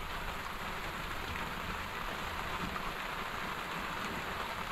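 Steady rain falling on the river and the boat: an even, constant hiss.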